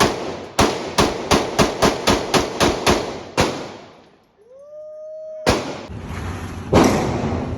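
A rapid string of about a dozen pistol shots fired in quick succession, followed after a short gap by a brief rising tone and then another sudden loud bang with steady noise after it.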